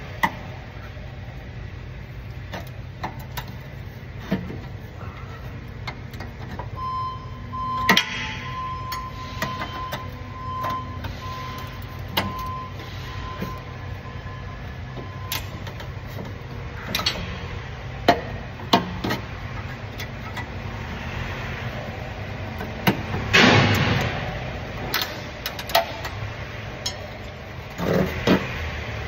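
Scattered metal clicks, knocks and scrapes of a hook tool prying sharp sheet-metal retainers off a van's exhaust heat shield, over a steady low hum. Louder scraping comes in two spells, about two-thirds of the way through and again near the end.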